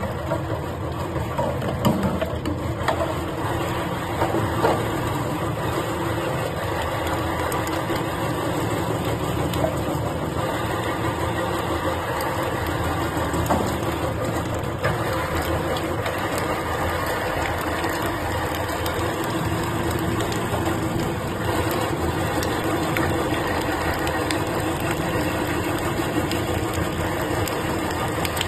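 Electric stainless-steel meat grinder running steadily under load, its motor and auger mincing raw meat through the cutting plate. A few short knocks in the first five seconds.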